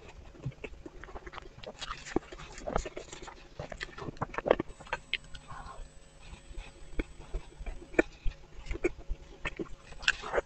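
Close-miked chewing and mouth sounds of a person eating a meat floss pastry: irregular wet smacks and crumbly bites, with sharp clicks scattered throughout.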